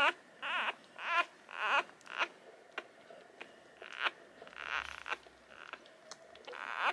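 Newborn puppies squeaking and whimpering while they nurse: a string of short, high, wavering cries, about nine in all.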